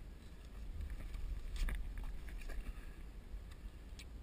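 Low, steady rumble of a Yamaha SUV jet ski running at slow troll speed, swelling a little in the middle, with a few scattered sharp clicks.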